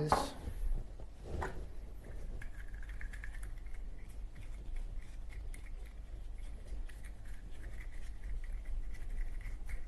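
Cotton swab scrubbing inside a Zippo lighter's metal insert: faint scratchy rubbing with many small clicks of handling. Two louder handling knocks come in the first second and a half.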